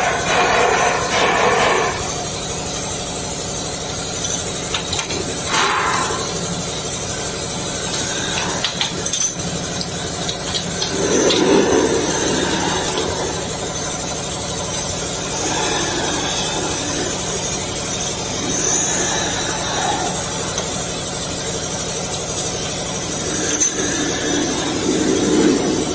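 Steady machinery hum, with scattered clicks, knocks and rubbing as hose and cable connectors are pushed onto and fitted to the rear sockets of a plasma cutting power source.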